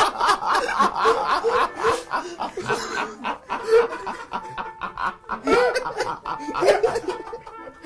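Several men laughing hard, in rapid bursts of ha-ha-ha that come again and again.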